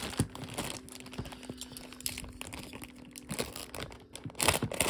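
Thin clear plastic bag crinkling and rustling as it is handled, with a louder crackle near the end as a box cutter slits the top of the bag.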